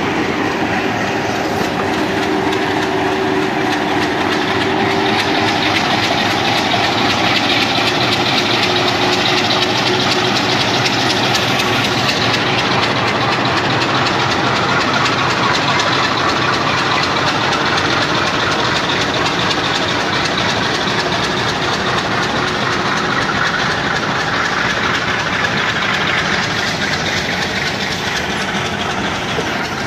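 Freight train running at close range: an MLW diesel locomotive's engine and ballast wagons rolling on the rails with a steady rumble. A faint steady tone from the engine drops away after the first few seconds.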